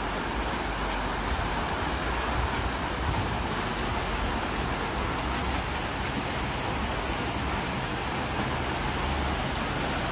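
Heavy rain during a downpour, heard as a steady, even hiss of noise.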